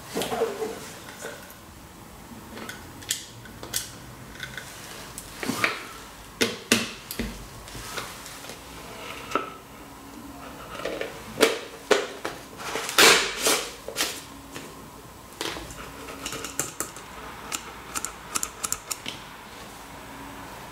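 Hard plastic parts being handled and fitted together: irregular clicks, knocks and scrapes as a speaker assembly is pushed into a plastic tub enclosure, with a louder cluster of knocks about thirteen seconds in.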